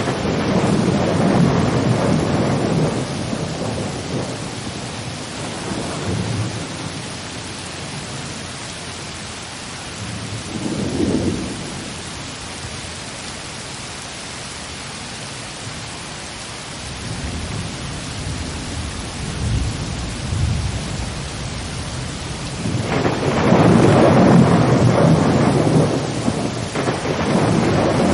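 Thunderstorm: steady rain hiss with rolling thunder. The rumbles swell at the start, again about eleven seconds in and a few times later, and are loudest a few seconds before the end.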